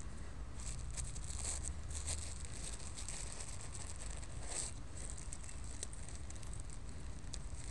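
Close rustling and crackling with many small clicks, over a steady low rumble; the crackles are busiest through the first two-thirds, with the strongest a little past halfway.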